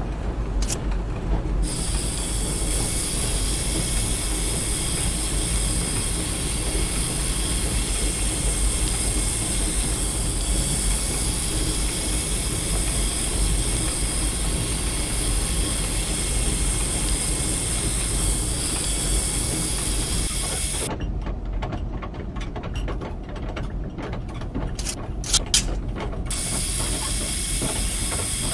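Production-line machinery running steadily with a bright hiss on top, as spinning sanding drums finish rice-husk cutting boards fed by a belt conveyor. About two-thirds of the way through, the hiss drops away, leaving a duller machine noise with a few sharp clicks.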